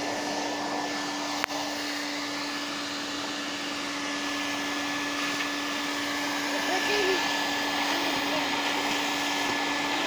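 Henry canister vacuum cleaner running steadily with an even motor whine and hum. A single sharp click comes about a second and a half in.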